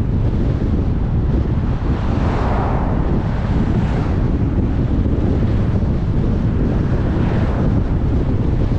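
Steady road and wind noise of a car driving, deep and rumbling, with two brief swells of hiss, one about two and a half seconds in and one near the end.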